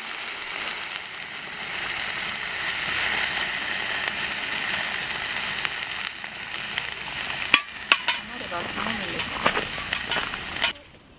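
Small kindling fire of leaves and twigs burning with a steady hissing crackle and a few sharp snaps, cutting off suddenly near the end.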